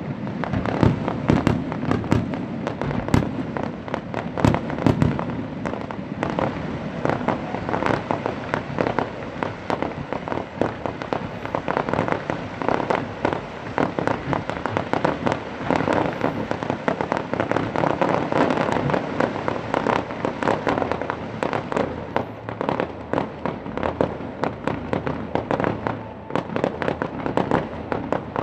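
Fireworks display: a rapid, continuous run of aerial shell bangs and crackling, with heavier low booms in the first few seconds and denser crackling later on.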